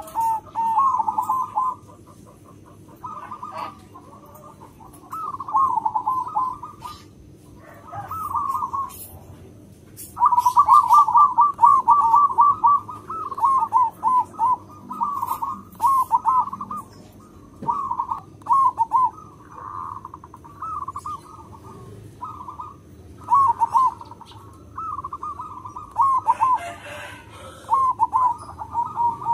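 A zebra dove (perkutut) cooing. It repeats its phrase of quick, stuttering notes over and over with short pauses between, and one long run comes about ten seconds in.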